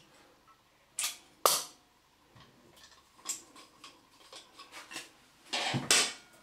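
Manual caulking gun clicking as its trigger is squeezed to push grab adhesive onto a timber batten: two sharp clicks about a second in, lighter ticks after, and a louder clatter near the end as it is handled on the tiled floor.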